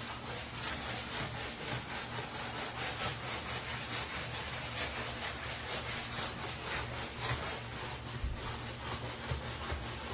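Scrubbing a wet, soapy wooden floor by hand: quick, even back-and-forth rubbing strokes.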